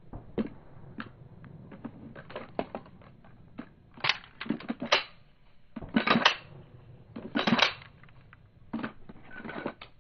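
Pistol and belt holster being handled: a series of clicks and short scraping rattles as the pistol is worked and slid back into the holster, with the busiest clusters about four, six and seven and a half seconds in.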